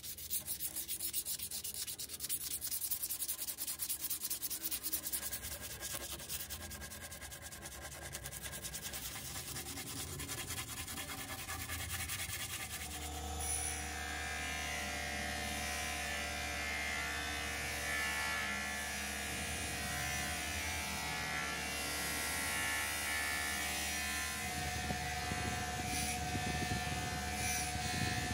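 A hand-held abrasive is rubbed in quick back-and-forth strokes on a steel spear head clamped in a vise. About 13 seconds in, this gives way to an electric bench grinder running with a steady hum while the steel blade is pressed against its spinning wheel.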